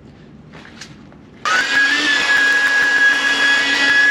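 Electric air pump switching on about a second and a half in and running steadily with a high whine, inflating a truck-bed air mattress; its pitch rises briefly as it spins up, then holds.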